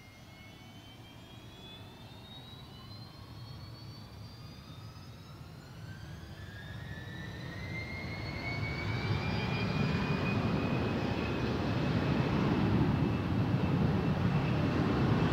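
Fokker 100 airliner's twin Rolls-Royce Tay turbofans spooling up to takeoff power for the takeoff roll. A whine climbs in pitch and the engine noise grows steadily louder. A deep rumble builds in over the second half.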